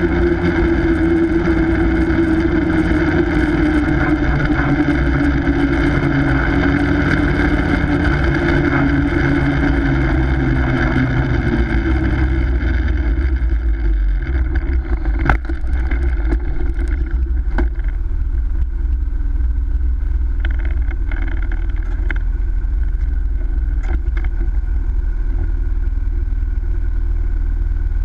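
Snowmobile engine running at speed with wind rumble on the microphone. Its note falls and fades about halfway through as the machine slows. A sharp knock follows soon after, then a few fainter clicks.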